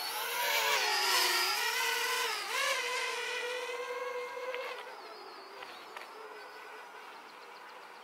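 Parrot Bebop 2 quadcopter's motors and propellers whining as it flies out. The pitch dips and then climbs about two and a half seconds in, holds steady, and the whine fades over the second half as the drone gets farther away.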